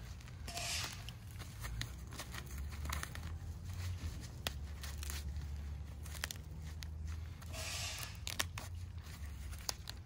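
Gloved hands rummaging through loose potting soil in a large plastic pot and pulling sweet potatoes free of their fibrous roots: rustling soil with many small crackles and snaps of roots, louder rustles near the start and about eight seconds in, over a low steady rumble.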